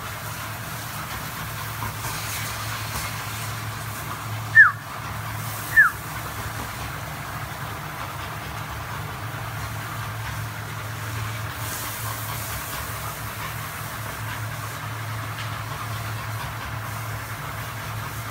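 Two short, sharp dog yelps about a second apart, each falling in pitch, over a steady low motor hum.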